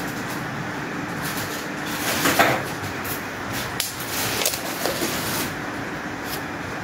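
A phone camera being handled and moved about: a few light knocks and rustles over a steady background hiss.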